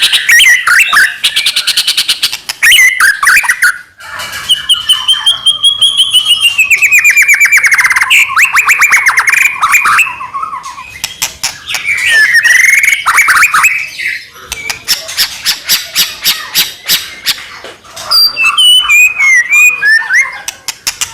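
White-rumped shama (murai batu) singing a loud, varied song almost without pause: fast rattling trills, gliding whistled phrases and harsh notes, with short breaks between phrases.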